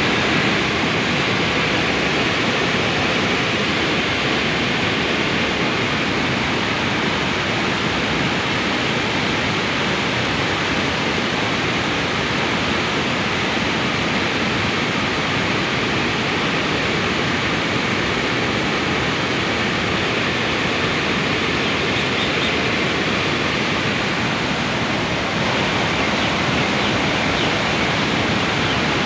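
Water rushing steadily through the open spillway gates of the Khandong dam, a flood release of the Kopili river.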